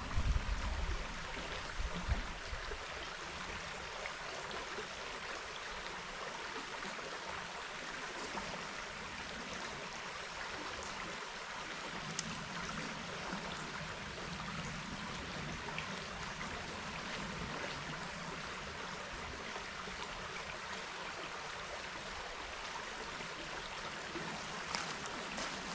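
Steady rush of a river's water running over rocks, with a few low knocks in the first second.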